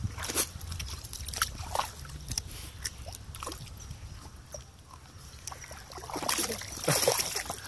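A dog splashing in shallow pond water as it paws and tugs at a sunken wooden stump: scattered splashes and sloshes, with a louder bout of splashing about six seconds in.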